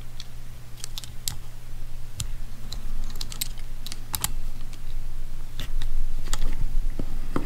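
Irregular small metal clicks and taps from snap-ring pliers working a snap ring into the bore of a Honda GL1500 rear brake master cylinder, over a steady low hum.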